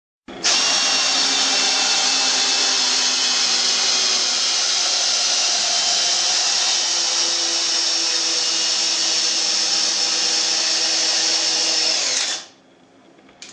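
Keyang DD 1441L drill/driver motor running at a steady speed for about twelve seconds, then winding down as the trigger is released. A single faint click follows near the end.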